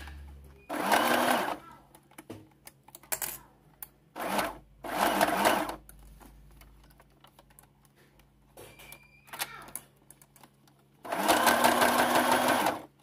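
Electric sewing machine stitching in four short runs, each one speeding up as it starts, with quiet pauses of small handling clicks between them; the last run, near the end, is the longest.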